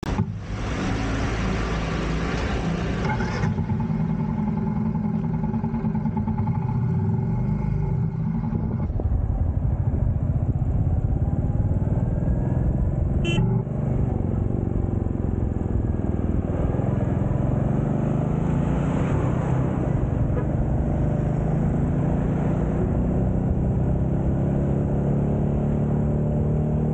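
Royal Enfield Meteor 350's single-cylinder engine running steadily while riding on a highway, mixed with wind and road noise and the sound of passing trucks, its pitch rising slightly near the end as it speeds up.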